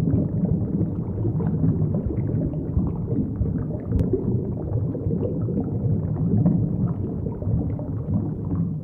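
Underwater rumble and bubbling: a steady, low churning of water.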